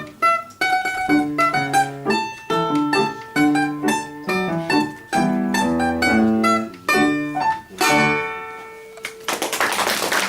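Domra playing a quick run of plucked notes with accompaniment, ending on a final held chord about eight seconds in. Applause starts about a second later.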